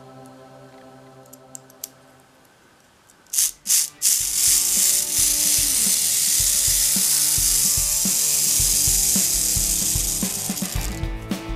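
Clockwork motor of a pre-war Schuco Examico toy car running down as its newly fitted mainspring unwinds: a couple of clicks, then a loud, busy whirr of the gear train for about seven seconds that breaks off near the end.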